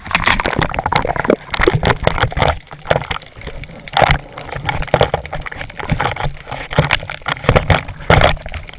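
Water sloshing and gurgling against a waterproof action camera, with many irregular knocks and crackles.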